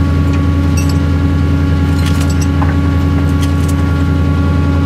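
A truck engine idling steadily, with a scatter of light metallic clinks from a tow chain being handled under the vehicle.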